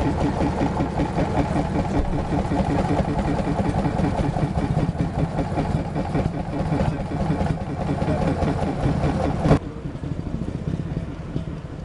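Small stationary engine running steadily with an even, rapid beat. It cuts off abruptly near the end, leaving a quieter background.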